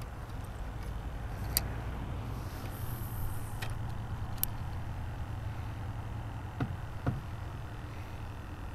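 A steady low rumble with a handful of sharp clicks and taps scattered through it, from a spinning rod and reel being handled.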